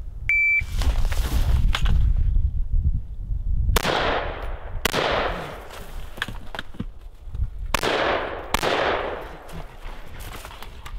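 A shot-timer beep, then a US military M4 carbine fired in pairs: two shots about a second apart near 4 s and two more near 8 s, each echoing. A low rumble fills the gap before the first shots.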